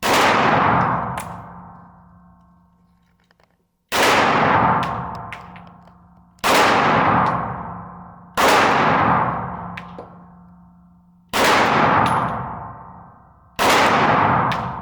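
Six shots from a 1911-pattern pistol, fired slowly at irregular intervals of about two to three seconds. Each shot is followed by a long ringing decay.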